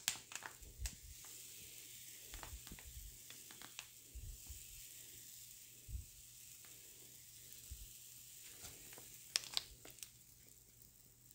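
Thin lines of pancake batter sizzling as they are squirted from a squeeze bottle onto a hot nonstick frying pan, a steady hiss that dies down near the end. A few light clicks and taps come through it, a sharper cluster of them near the end.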